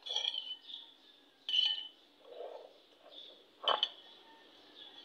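A metal spoon scraping and clinking against a bowl as the last of the champorado is scooped out: three separate scrapes, the last a sharp clink a little before the end.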